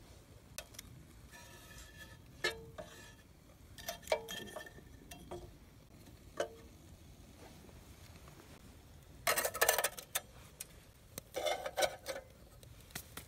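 Metal clinks and knocks on a small box-shaped camping wood stove as firewood is fed in and a metal cup is set on top, several of the clinks ringing briefly. Two louder stretches of rustling and scraping come near the end.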